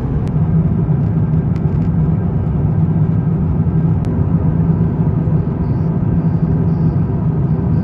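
Steady low rumble of a jet airliner in flight, heard from inside the cabin.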